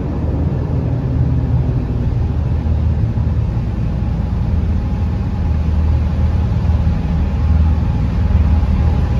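Narrowboat engine running with a steady low drone inside a brick canal tunnel.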